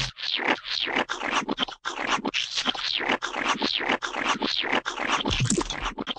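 Rapid rasping scratch-like strokes, about three a second, keeping up without a break: a scraping sound effect.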